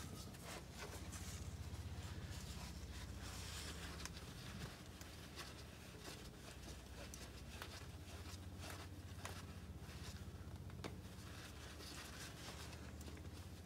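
Gloved hand twisting off a spin-on oil filter on an International S1900 truck engine: light scraping and rustling with scattered small clicks, over a faint steady low hum.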